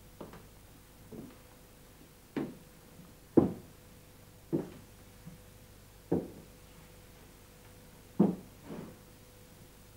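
Footsteps of a man in shoes climbing a wooden staircase: slow, heavy steps, about one a second, some louder than others.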